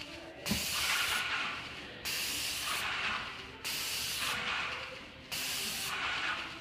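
Graco Jet Roller hissing in four short bursts, about one every second and a half, each starting sharply and fading, as pressurised paint is fed through the roller onto a block wall.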